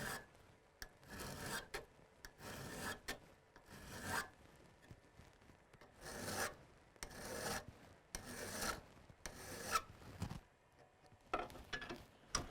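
Hand file rasping across the bevel of a crampon's front points to sharpen them, in a run of separate strokes with a short pause about halfway.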